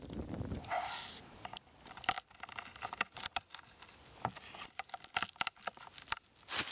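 Sharp, irregular crackles and pops from outdoor cooking over an open wood fire on a hot stone, with a short hiss about a second in.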